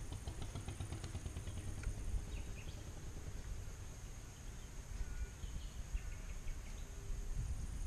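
Outdoor waterside ambience: a low rumble of wind on the microphone, a steady high insect drone, and a few faint bird chirps, with a quick run of soft clicks about the first second.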